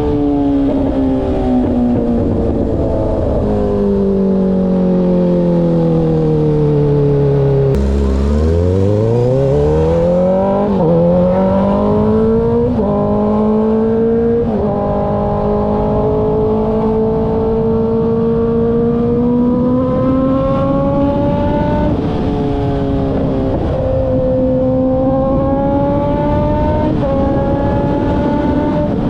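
2013 Kawasaki ZX-6R's 636 cc inline-four engine on the road. Its note falls steadily for the first several seconds as the bike slows, then about eight seconds in it climbs hard through three or four quick upshifts, each a sudden drop in pitch, and settles into cruising with a few more gear changes near the end, over steady wind noise.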